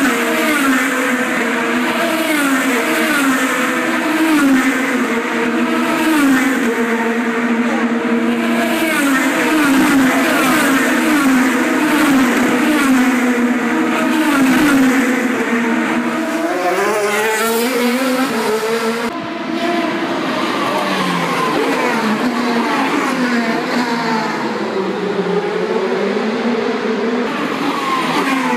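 IndyCar race cars passing one after another on a street circuit, their high-pitched engines running hard with notes that climb and fall in pitch as they accelerate and slow. There is hardly a break between cars.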